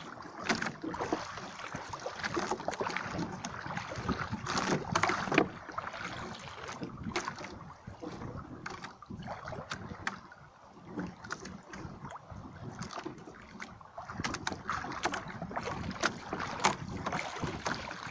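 Irregular rustling, bumping and small knocks of a person moving about in a small wooden outrigger boat, probably handling rain gear.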